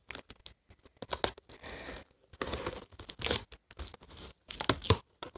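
Doll packaging being opened by hand: irregular tearing, rustling and crinkling of cardboard and plastic in short bursts.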